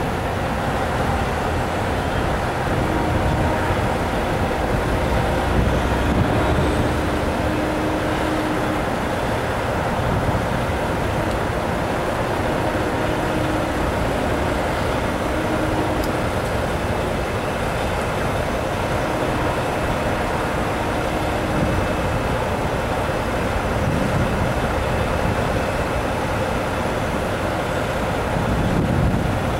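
Steady highway traffic noise from cars and tractor-trailers passing, mixed with the rumble of a freight train running by behind the highway.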